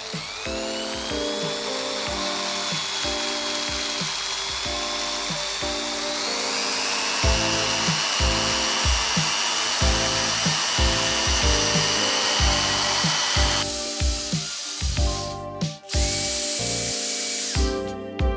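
A handheld electric power tool spins up with a rising high whine and runs for about fourteen seconds, its pitch stepping up about halfway through, then stops; a second short burst follows near the end. Background music with a steady beat plays throughout.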